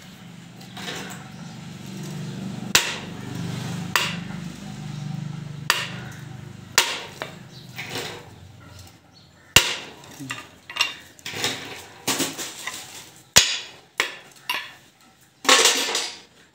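Hammer tapping on a drift rod against a submersible pump motor stator, driving insulated winding wire into its slots during rewinding. The sharp strikes come irregularly, about one or two a second, and the loudest and longest falls near the end.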